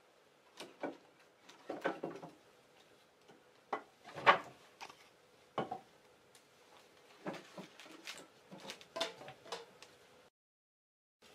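Irregular knocks and clatter of wooden offcuts being handled and thrown into the firebox of a wood-fired train kiln, with the loudest thud about four seconds in.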